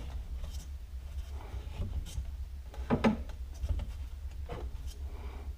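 Hand-work on the threaded spring adjuster of a Can-Am Spyder front shock: light rubbing and scraping with scattered small clicks, a slightly louder knock of handling about three seconds in, over a steady low hum.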